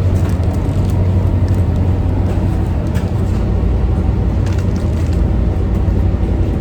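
Steady low drone of a towboat's engines, with scattered light clicks and knocks over it.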